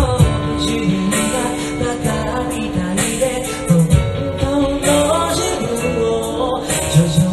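A man singing a Japanese pop song into a handheld microphone over a backing track with a steady beat; near the end a woman's voice joins him in duet.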